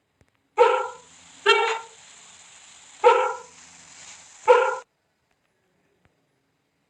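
An animal gives four short, loud calls, a second or so apart, over a faint hiss that cuts off suddenly just after the last call.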